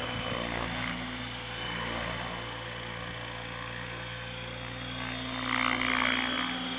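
Align T-Rex 700 radio-controlled helicopter hovering and lifting off, its spinning rotor and drivetrain giving a steady hum and whine. It grows briefly louder about five and a half seconds in.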